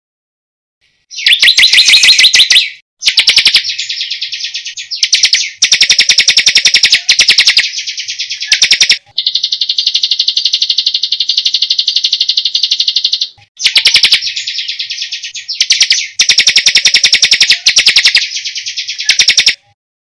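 Songbird song recording of very rapid, high-pitched rolling trills. It starts about a second in and comes in stretches of a second or two with short breaks, with one long even trill lasting about four seconds in the middle.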